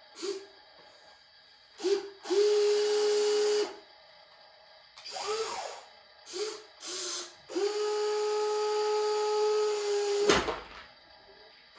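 Remote-control toy excavator's electric motors whining in start-stop bursts as the boom and bucket move: a few short bursts, one that rises and falls in pitch, and two steady runs of about one and three seconds. A sharp knock near the end.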